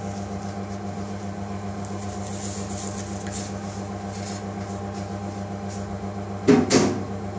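Steady low hum of running kitchen machinery, with a short double knock near the end.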